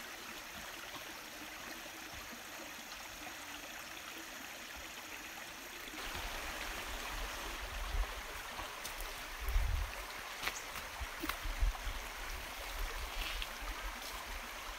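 Steady rushing noise of a nearby stream. About six seconds in the noise gets louder, with low rumbling on the microphone and several sharp clicks.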